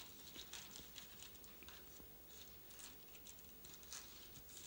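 Near silence with faint, scattered paper rustles: Bible pages being turned and handled at a pulpit.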